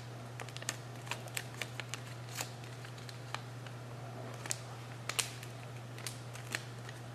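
A square of origami paper being folded and creased by hand: a dozen or so irregular soft crackles and crinkles over a steady low hum.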